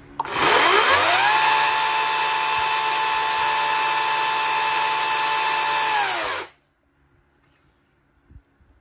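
Echo DCS-5000 56-volt brushless cordless chainsaw run with no load: the motor spins up with a rising whine to a steady high-pitched whine as the chain runs free, holds for about five seconds, then cuts off sharply.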